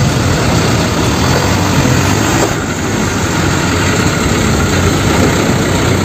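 Diesel engine of a Hino light fuel tanker truck running steadily as the truck drives close by, a low hum under a constant rumbling noise.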